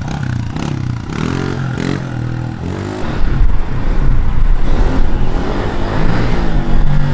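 Small Honda CRF dirt bike's single-cylinder four-stroke engine revving through the gears, its pitch climbing and dropping several times. About three seconds in it gets louder, with a heavier low rumble, as the bike rides back toward the camera.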